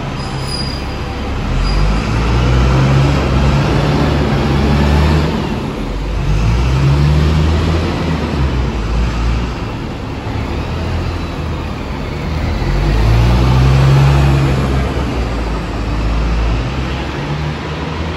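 Bus diesel engine, a Cummins ISBe, working through its Voith DIWA automatic gearbox. The engine note climbs and drops back three times as the bus accelerates, over steady road noise.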